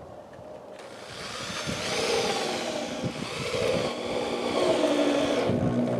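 Corded electric drill driving wood screws through a plywood top into the wooden frame, its motor whine rising and falling in pitch. It starts about a second in and stops shortly before the end.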